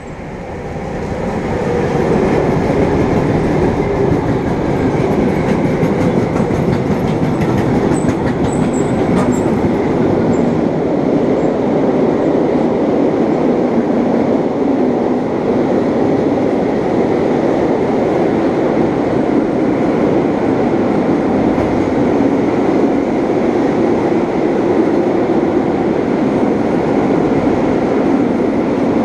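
A long freight train of car-transporter wagons passing through at speed. Its loud rolling rumble of wheels on rail builds over the first couple of seconds and then runs on steadily, with a few faint high squeaks near the tenth second.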